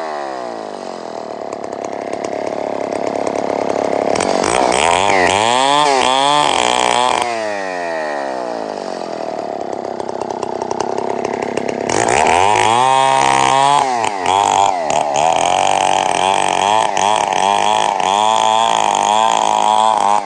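Stihl two-stroke chainsaw running, its engine revved up and down again and again: a flurry of quick revs about four seconds in, steadier running after, then a high rev about twelve seconds in and uneven revving after it.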